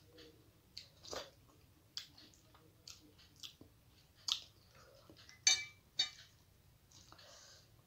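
Close-up eating sounds of rice and fish eaten by hand: chewing and fingers mixing rice on the plate, heard as a string of short wet clicks and smacks. The two sharpest come about five and a half and six seconds in.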